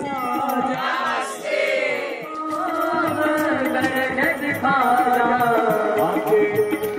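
Background music: a voice singing a slow, chant-like melody with long held, gliding notes over light, steady percussion.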